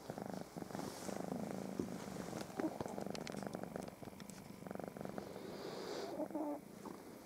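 Domestic cat purring steadily, the purr pausing briefly now and then between breaths.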